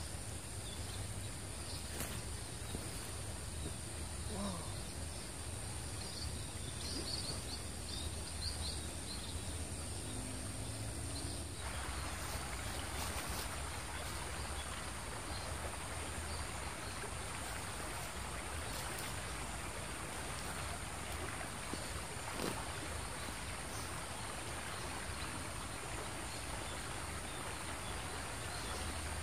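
Steady outdoor background noise of a flowing stream, with a few faint high chirps about seven seconds in.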